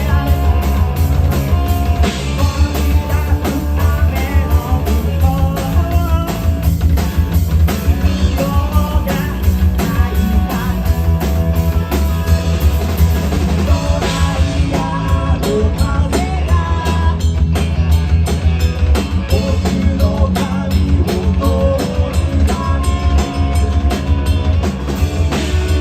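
Loud live rock band playing: fast, steady drum-kit beat, heavy bass and distorted guitar, with a singing voice at times.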